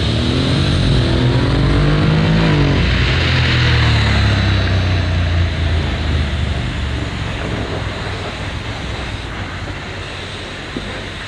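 Honda Integra's parallel-twin engine under full-throttle acceleration from a standstill: the revs climb, drop back at an upshift of its dual-clutch gearbox about a second in, climb again and drop at a second shift near three seconds. The engine sound then slowly fades as the bike pulls away.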